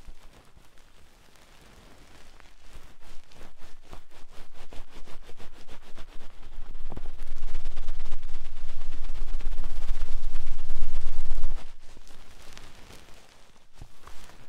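Fast scratching and rubbing directly on an ASMR ear microphone, a dense run of rapid strokes with a deep rumble from the mic being handled. It builds up, is loudest for a few seconds, and drops off suddenly about eleven and a half seconds in.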